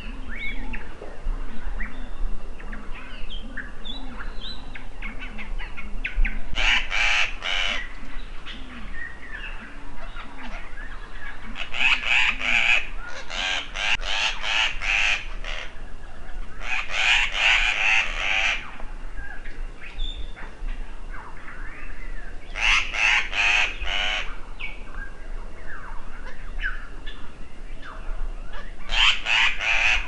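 African paradise flycatcher scolding: five bouts of harsh, rasping notes repeated rapidly, the longest running a few seconds, the alarm call of an agitated bird. Fainter short chirps of birds can be heard between the bouts.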